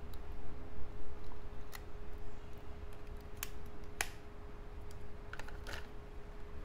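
A handful of sharp little clicks and taps of hard plastic as a replica AirPods Pro 2 earbud is handled over its charging case, the case lid is shut and the case is set back into its cardboard box; the loudest click comes about four seconds in.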